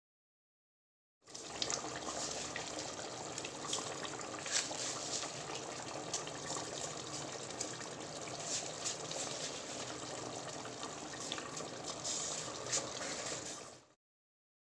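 Spiced cooking liquid boiling in an open aluminium pressure cooker: a steady bubbling hiss with frequent small pops. It starts abruptly about a second in and cuts off just before the end.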